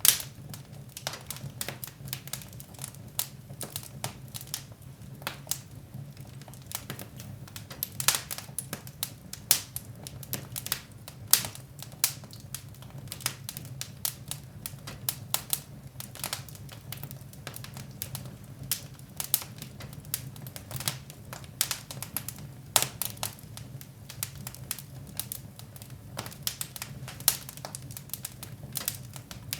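Wood fire in a fireplace crackling, with many irregular sharp pops and snaps of varying loudness over a steady low hum.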